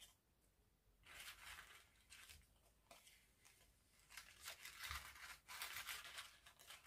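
Faint, irregular rustling and crinkling of folded colored paper as two origami pieces are handled and slotted together.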